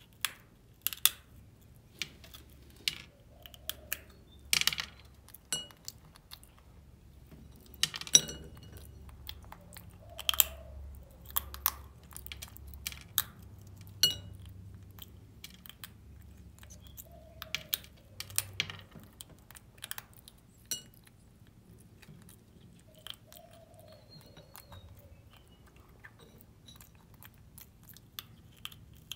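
Baby macaque eating coated peanut candy: sharp, irregular crunches every second or two, with quieter chewing between.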